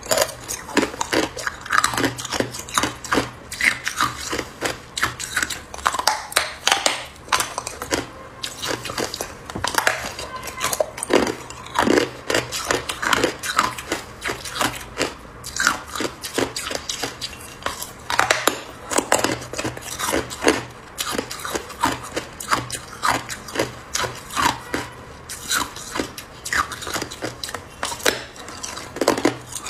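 Hard clear ice bitten and chewed close up: irregular crunches and cracks, a few a second.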